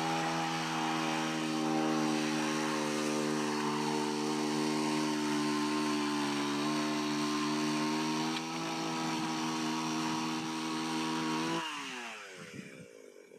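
Chainsaw motor running at a steady pitch for about twelve seconds, then winding down, its pitch falling away near the end.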